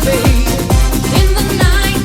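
1990s Eurodance music: a steady kick drum about twice a second under electronic synth lines.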